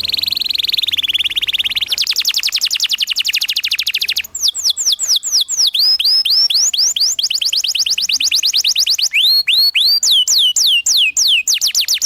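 Canary singing a fast, rolling song: a dense trill at first, then rapid repeated notes, then a run of slurred whistles sweeping down and up about three times a second. It is the loud, continuous 'ngerol' song of a canary in full voice, of the kind played to young canaries to teach them.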